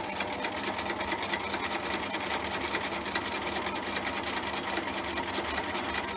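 Bernina 1008 sewing machine running steadily at a zigzag stitch, its needle clicking in a fast, even rhythm as it sews a chiffon ribbon edge onto fabric paper.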